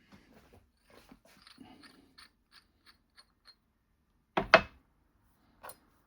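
Light clicks and taps of hand tools and metal parts being handled, about three a second, then two loud sharp knocks in quick succession about four and a half seconds in and a smaller knock near the end.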